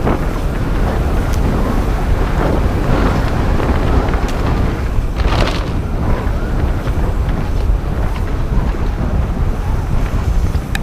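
Wind buffeting the microphone and tyres rolling over dirt as a Yeti SB150 29er mountain bike is ridden fast down a trail. There are a few brief louder scuffs, the strongest about five and a half seconds in.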